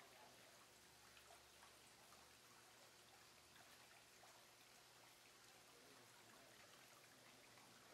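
Near silence with a faint, steady trickle of aquarium water from the tank's filtration.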